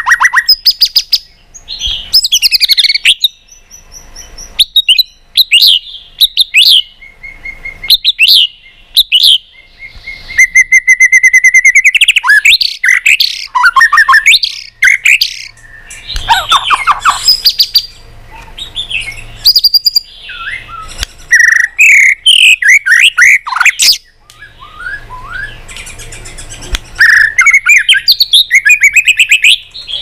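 White-rumped shama singing loudly: a long, varied song of quick rising and falling whistled phrases and fast runs of repeated notes, broken by short pauses.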